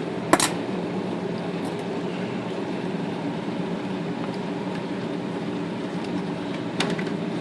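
A steady low hum runs throughout, broken by a sharp click about half a second in and a lighter click near the end as parts of an electric typewriter's carriage-return gear mechanism are handled during disassembly.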